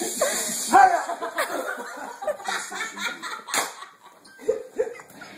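People laughing and exclaiming, with a couple of sharp knocks, about one and a half and three and a half seconds in.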